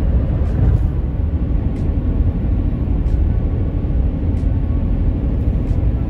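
A car driving along a road, heard from inside the cabin: a steady low rumble of tyre and engine noise.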